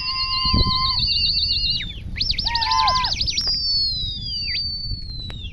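Loud human whistling, several whistles at once, of the kind pigeon fanciers use on their flying pigeons. A warbling held whistle gives way to a quick trill about two seconds in, then long falling whistles.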